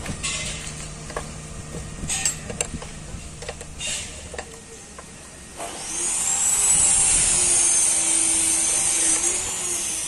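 Metal hand tools clink against a truck gearbox casing over a low steady hum. About six seconds in, a loud hiss with a faint rising-then-falling whistle starts and lasts about four seconds before easing off.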